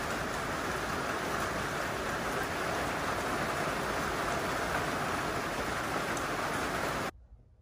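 Steady rain falling, an even hiss that cuts off abruptly about seven seconds in.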